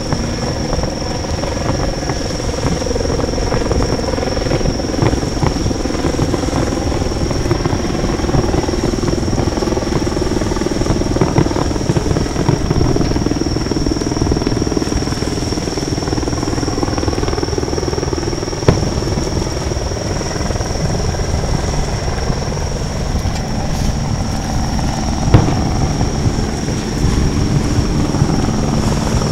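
A steady engine drone whose pitch drifts slowly, with a few sharp bangs of distant aerial fireworks, the loudest about two-thirds of the way through and near the end.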